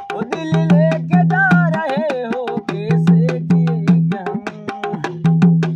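Dholak, a two-headed rope-tensioned barrel drum, played by hand in a fast steady rhythm: sharp slaps on the treble head over a ringing low boom from the bass head. For a couple of seconds near the start a man's wordless, wavering sung line rises over the drumming.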